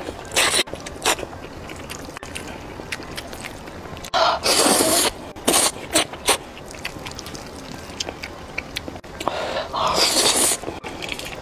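A person slurping cheese-topped fried noodles: a long noisy slurp about four seconds in followed by three quick short sucks, and another long slurp near the end. Chewing with small wet clicks fills the gaps.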